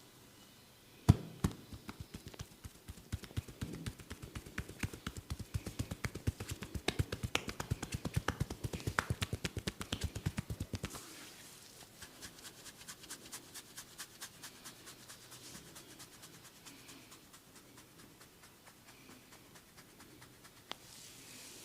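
A barber's hands tapping rapidly on a person's head in a percussive massage, several strikes a second with a sharp first strike. After about ten seconds the taps become lighter and slower, then fade out.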